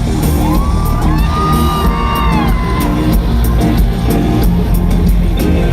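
Loud live pop concert music with a heavy steady beat, heard amid the audience, with a high whooping voice sliding up and down over it from about half a second to nearly three seconds in.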